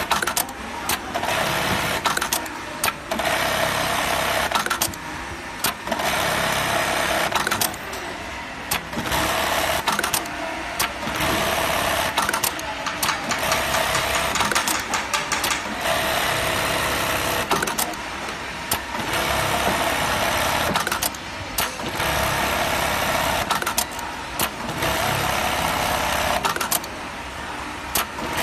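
Computerised bartack sewing machine running through its stitch cycles: repeated bursts of rapid stitching a second or two long, with sharp clicks and brief pauses between them.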